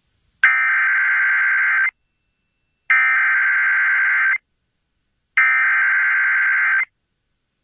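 Emergency Alert System SAME header: three identical bursts of digital data tones, each about a second and a half long with about a second of silence between. They are the coded start of a new alert, here a severe thunderstorm warning.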